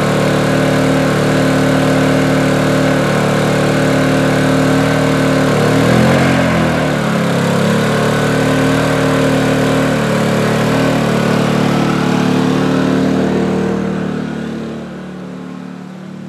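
Honda EU2000i Companion inverter generator's small single-cylinder four-stroke engine running steadily, with its engine speed wavering briefly about six seconds in. The sound grows fainter over the last two seconds.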